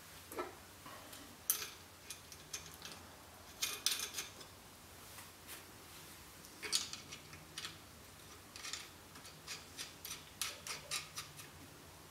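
Faint, irregular small metallic clicks and taps as a connecting rod and its big-end cap are fitted by hand onto a crankpin of a 1956 Ariel Square Four crankshaft for a Plastigauge bearing-clearance check.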